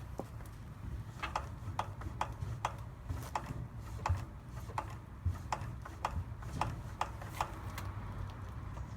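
Fox Float 32 Evolution air-sprung suspension fork being pumped up and down by hand, giving a sharp click or clunk on the strokes, about two to three a second. The clunk is an unexplained fault in the fork that the owner is asking about.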